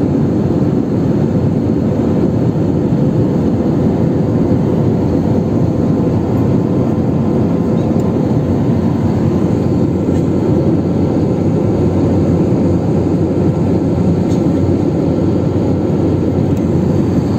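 Steady cabin noise inside a jet airliner in cruise flight, with the engines and the airflow over the fuselage making an even, deep rushing hum that does not change.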